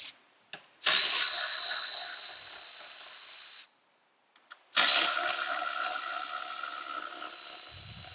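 Power tool running twice, about three seconds each, with a high steady whine, spinning out 10 mm bolts. Each run starts loud and then settles, as a bolt breaks loose and then spins free. A few light clicks come just before the first run.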